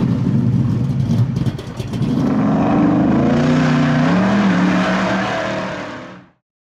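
Car engine running hard and revving, its pitch climbing about four seconds in, then cutting off suddenly a little after six seconds.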